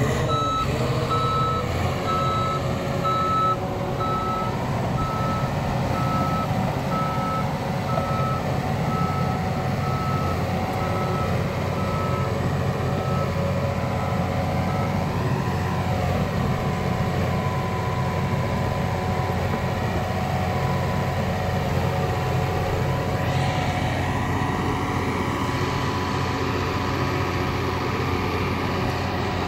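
Heavy diesel machine running steadily, with its reversing alarm beeping about once a second for roughly the first half, then stopping while the engine carries on and its pitch rises and falls.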